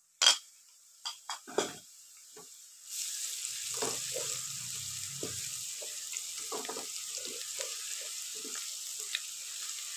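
A few knocks of a spoon and bowl against the wok as garlic-ginger paste goes in. Then, about three seconds in, onions frying in hot ghee start a steady sizzle, with the scrapes of a wooden spatula stirring them.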